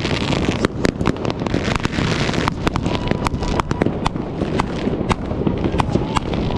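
Fireworks and firecrackers going off all around: many sharp cracks in quick, irregular succession over a continuous low rumble of further bangs.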